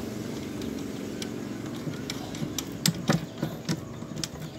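Sharp small clicks and taps of a plastic cooling fan frame and its nuts being handled on threaded metal rods, starting about halfway and coming several times a second or so. A steady low mechanical hum runs underneath.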